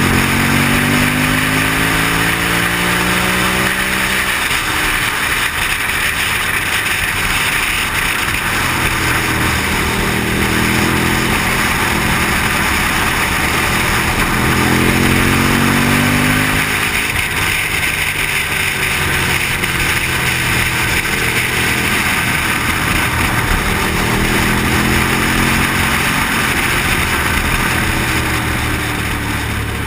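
Motorcycle engine heard from on board, its pitch rising under throttle and falling back several times along the ride, under a steady rush of wind.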